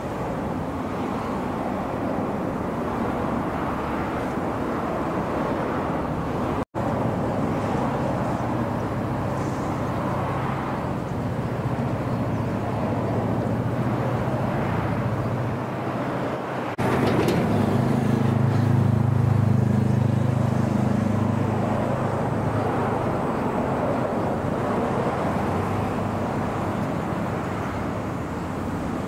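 Steady outdoor noise with a low engine hum under it. The hum gets louder about two-thirds of the way through, and there is a momentary dropout a little after six seconds.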